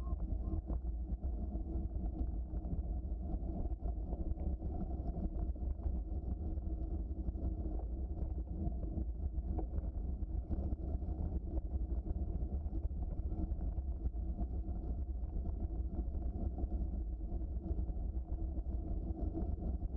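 Steady rolling noise of a bicycle riding along a trail, with wind on the microphone and many small rattles and clicks from the bumps.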